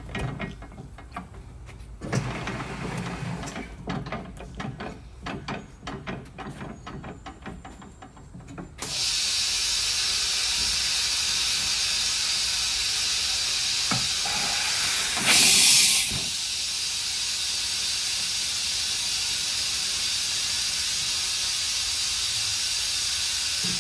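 Clanks and clicks of a large tire being worked onto a wheel on a tire changer. About nine seconds in, a loud, steady hiss of compressed air starts as the tire is inflated to seat the bead, with a brief, louder blast of air partway through.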